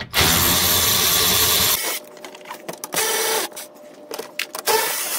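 Cordless power tool running the 10 mm bolts out of a car's plastic underbody cover: one long run of about a second and a half, then two short bursts with a whine.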